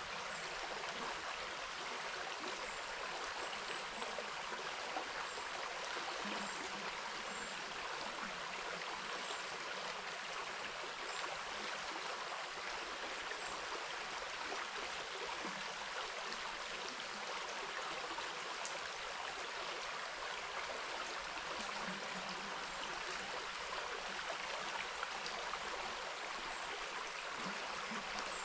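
River water running steadily over rocks, a continuous even rush with no breaks.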